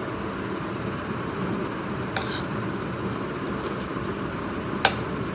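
A metal spoon clinking against a plate, with one clink about two seconds in and a sharper, louder one near the end, over a steady background hum.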